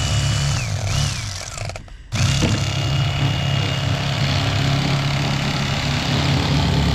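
Cordless electric fillet knife running as it cuts into a striped bass, with a steady high whine over a low motor hum. The motor sags and stops briefly about two seconds in, then starts again and runs steadily.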